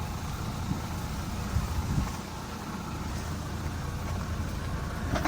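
Mahindra Thar's engine running with a steady low rumble, with a few light knocks about two seconds in.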